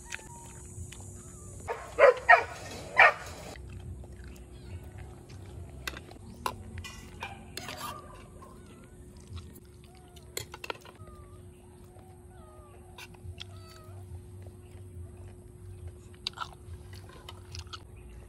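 A dog barks three times, loud and short, about two seconds in. Around it come scattered light clinks of a metal spoon and fork on a ceramic plate and small chirps.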